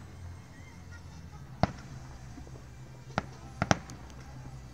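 Fireworks going off: four sharp bangs. The loudest comes about one and a half seconds in, another about three seconds in, and a quick pair follows right after it.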